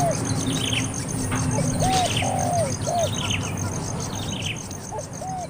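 Birds calling: a low, hooting group of three arched notes comes twice, with higher down-slurred chirps about once a second. A fast, even insect-like ticking runs underneath.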